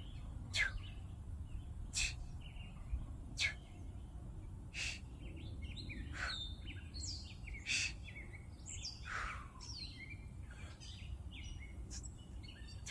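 Wild birds singing and chirping in short, varied phrases, some notes gliding downward. Through the first half, a short sharp sound repeats about every one and a half seconds. A steady low rumble of outdoor air runs underneath.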